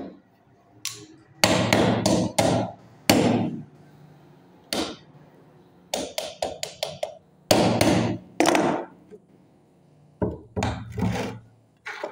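Hammer striking, apparently to tap a starter motor's housing and parts into place: about twenty sharp knocks in irregular clusters of quick blows, each ringing briefly.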